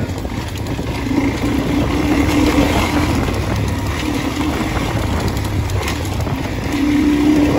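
Suzuki DR-Z400E dirt bike's single-cylinder four-stroke engine running steadily, its pitch wavering slightly.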